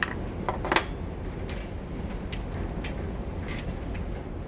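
Light clicks and clinks of small metal hardware and tools being handled while a bicycle fender is unbolted. A few sharper clinks come within the first second, then scattered lighter ticks.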